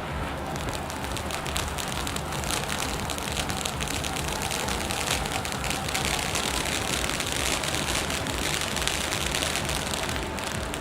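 Gold battle fountain firework spraying sparks: a steady loud hiss full of fine crackling, which starts suddenly and dies away near the end.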